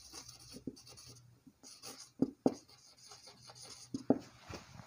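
Marker writing on a whiteboard: faint scratchy strokes in short runs, with a few sharp ticks of the tip against the board.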